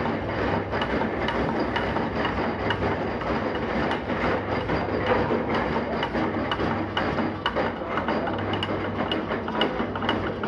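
Metal lathe running, with a steady hum and a dense rattle of small ticks.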